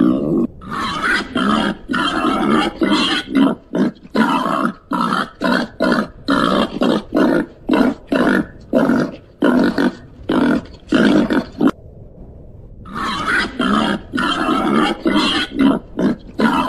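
Babirusa giving a rapid series of short calls, about two a second, with one pause of about a second before they resume.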